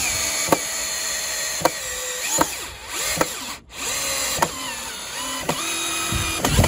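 Bosch PSB 1800 LI-2 cordless drill driving wood screws through a steel Post Buddy bracket into a timber fence post. The motor whines in several short bursts, its pitch rising as it spins up, with sharp clicks between the runs.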